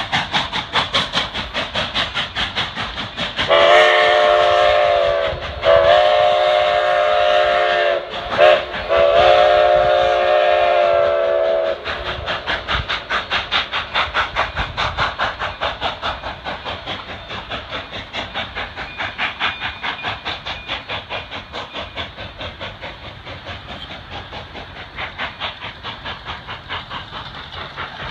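Denver and Rio Grande Western K-36 coal-burning steam locomotive working past with rapid, regular exhaust chuffs. About three seconds in, its steam whistle sounds two long blasts, one short and one long, the grade-crossing signal. The chuffing then fades as the train pulls away.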